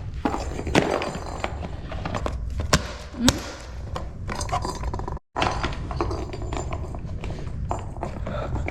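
Irregular clicks and knocks of a plastic interactive cat toy being batted and pushed about by a cat, over a steady low rumble.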